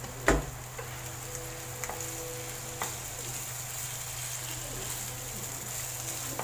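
A thump about a third of a second in, then a steady sizzle from the pan as a wooden spatula breaks up and stirs cooked glutinous rice into the frying coconut-milk, pea and sausage mixture, with a few light clicks.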